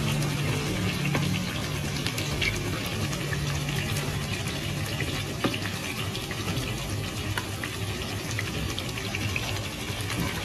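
Kitchen work noise: a steady hiss with scattered clicks and clinks over a low hum.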